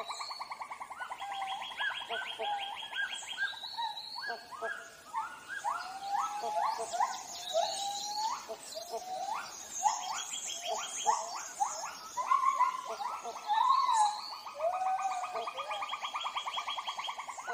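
Tropical rainforest ambience: a steady, rapid pulsing trill with many short rising and falling animal calls over it, thickest in the middle.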